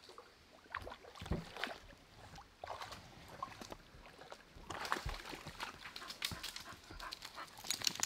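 A dog in a shallow creek, with faint, irregular splashing and lapping.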